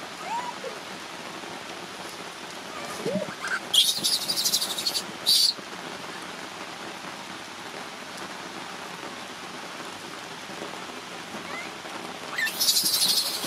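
Steady rain falling on wet ground, with an infant macaque screaming in harsh, high-pitched shrieks about four seconds in and again near the end, a few short squeaks before the first outburst. The cries are a frightened baby's distress calls in the rain.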